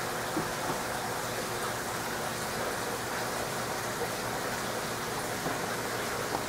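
Steady hiss of water running through a large aquarium's filtration, with a few faint ticks.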